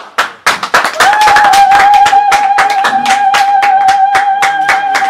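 A group of people clapping fast. About a second in, a voice joins with one long, high, held cry that lasts to the end.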